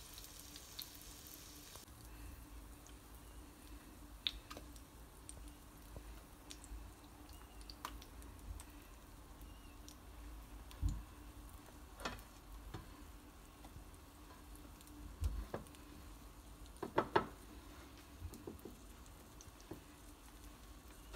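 Chicken pieces frying in oil in a non-stick pan, a faint sizzle that is a little stronger for the first couple of seconds. Now and then there are soft knocks and taps from plates and from hands coating chicken in flour.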